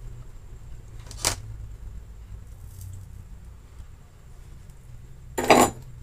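Handling noise from soldering a power-adapter circuit board: a sharp click about a second in and a short clatter near the end, with a low steady hum underneath. The clatter comes as the soldering iron is put down.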